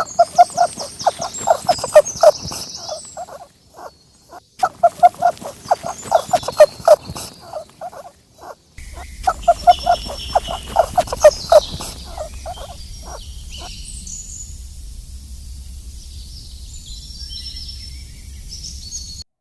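An animal calling in three bouts of quick, even pulses, each bout about three seconds long, with high bird chirps behind. The calls stop about twelve seconds in, leaving the chirps over a steady outdoor hiss.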